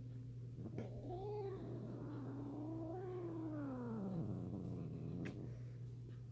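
A domestic cat giving one long, drawn-out yowl that starts about a second in, wavers up and down in pitch and sinks low before stopping about five seconds in: the grumbling complaint of a cat upset after a kitten scared him.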